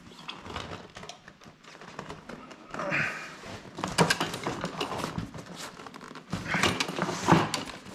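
Fat-bike tire being worked off its metal rim by hand: rubber scuffing and scraping, and the rim and tire knocking against the work table. There is a short scrape about three seconds in and a cluster of louder knocks near the end.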